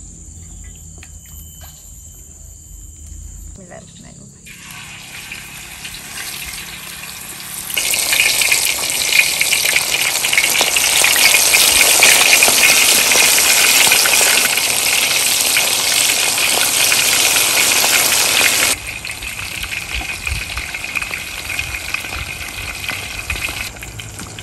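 Whole snakehead fish deep-frying in hot oil in a wok, a dense sizzle that starts softly, turns loud about a third of the way in, then drops suddenly to a quieter steady sizzle about three-quarters of the way through.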